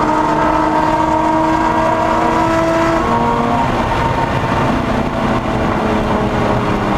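Lotus Exige S engine at high revs under full throttle, heard from inside the cabin, its pitch rising slowly, then an upshift about three seconds in drops the pitch before it climbs again. A steady rush of wind and tyre noise at high speed runs underneath.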